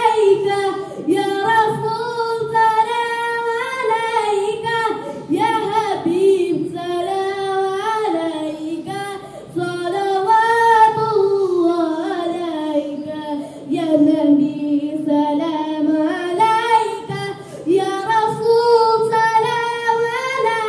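A boy singing an unaccompanied Urdu-Arabic naat, a devotional song in praise of the Prophet, with long held notes that waver and slide between phrases.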